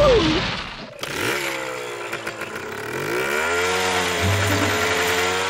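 Chainsaw engine running, its pitch dipping and then rising back to a steady whine.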